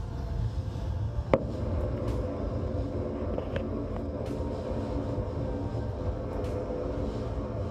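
Steady low engine rumble with a constant hum, and a single sharp click about a second in.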